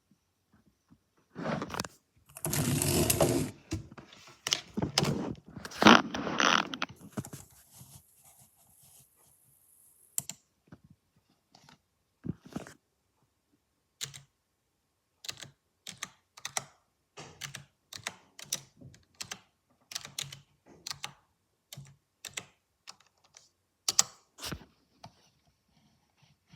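Desktop PC making grinding noises: several seconds of loud grinding about two seconds in, then a run of irregular sharp clicks and knocks, roughly one or two a second.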